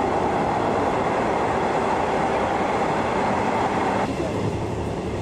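Steady rumble and hiss inside a train carriage. It changes abruptly about four seconds in, when the higher hiss drops away.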